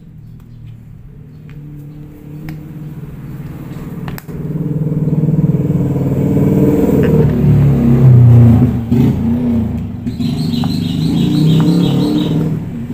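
A motor vehicle engine running close by, growing louder over the first several seconds and then staying loud, its pitch wavering. There is a single sharp click about four seconds in.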